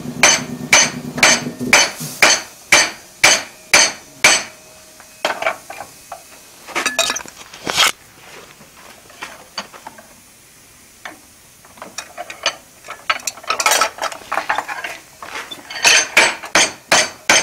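Hand hammer blows on a red-hot bar of coil spring steel clamped in a post vise, upsetting it to form a railroad-spike head: a steady run of ringing strikes about two a second, then a few lighter clinks and a quiet lull, before fast hammering starts again near the end.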